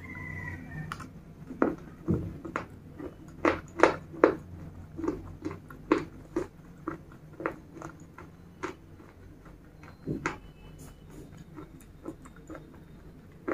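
Close-miked crunching as broken slate pieces coated in red paste are chewed: sharp crisp crunches, about two or three a second, loudest a few seconds in, thinning out and stopping about ten seconds in.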